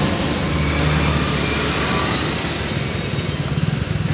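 Road traffic noise with a steady low vehicle engine hum. Near the end it turns into a fast engine putter.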